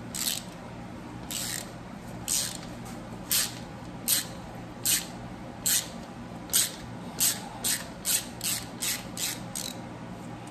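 Hand ratchet clicking in a series of short rasps, one with each swing of the handle, as it backs out the crank sprocket bolt in the cam chest of a Harley-Davidson Milwaukee-Eight 114 engine. There are about fifteen rasps, and they come faster over the last few seconds.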